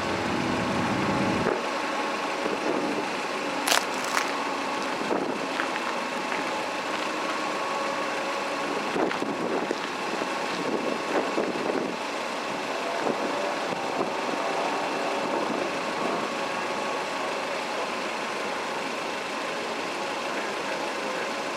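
Steady hum of an idling vehicle engine, with two sharp clicks about four seconds in; a deeper rumble underneath stops about a second and a half in.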